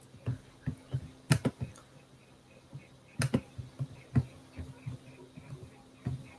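Typing on a computer keyboard: irregular key clicks, with a few louder keystrokes, over a faint low hum. A faint, even ticking of about three a second comes in over the second half.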